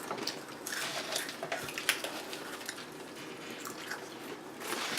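Eating utensils clicking and scraping against dishes and food containers, a scattered run of light clicks.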